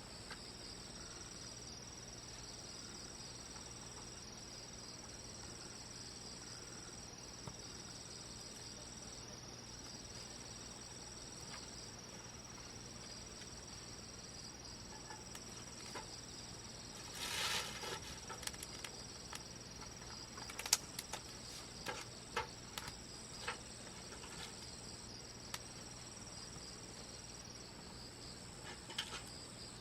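Bonfire crackling: a short hiss-like flare and a run of sharp pops and snaps, loudest about two-thirds of the way through. Insects chirr steadily underneath in an unbroken high trill.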